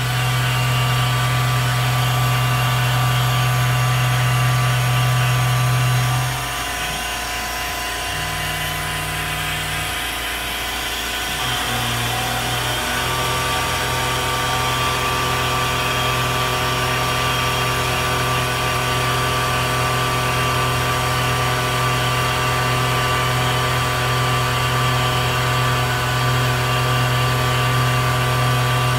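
PM-25MV CNC milling machine's end mill cutting aluminum at 13 inches a minute: a steady machining drone with air-blast hiss, cutting well. The drone eases for several seconds about six seconds in, then comes back.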